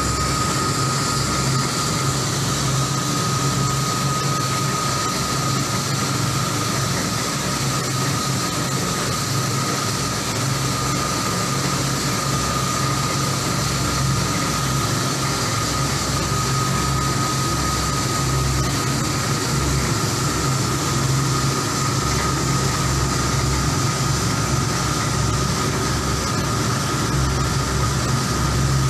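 Small drum coffee roaster running, with the stirring arms of its cooling tray sweeping roasted beans round in a steady rustling hiss over the machine's low motor hum and a steady high whine. The beans are at the cooling stage, just dropped from the drum.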